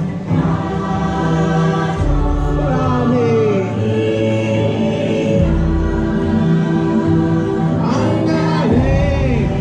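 Music with a choir singing long held chords, with a solo voice sliding in pitch over it now and then.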